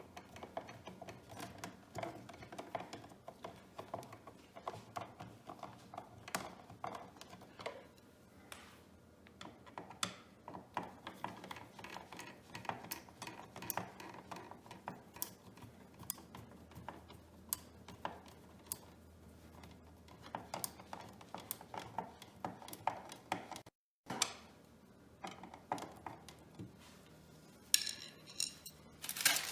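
Irregular light clicks, taps and rattles of small metal and plastic parts being handled: an electrical outlet, its wires and screws being worked into place by hand.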